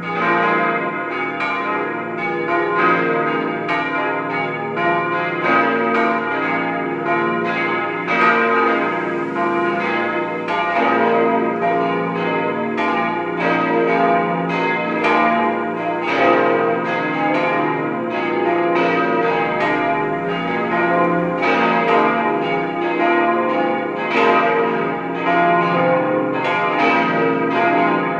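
Peal of large cast-steel church bells, a five-bell set tuned B♭, C, E♭, F and A♭, swinging and ringing. Strikes come several times a second at uneven, overlapping intervals, and each bell's tone rings on under the next strokes.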